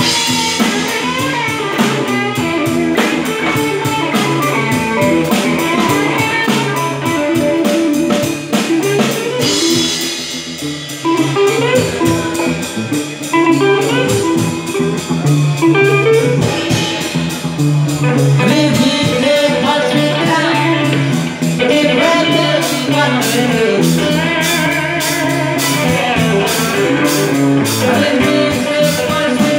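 Live band playing: electric guitar over a drum kit, with cymbals.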